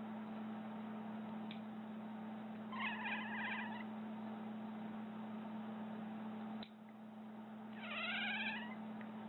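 Domestic cat meowing twice, each a drawn-out, wavering cry about a second long, several seconds apart, over a steady low hum.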